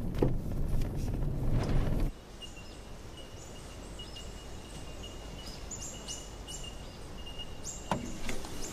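Car-cabin rumble of engine and tyres on a bush track for about two seconds, then it cuts off into quiet bush ambience with birds calling: a thin steady high trill and short rising chirps. A single sharp knock comes near the end.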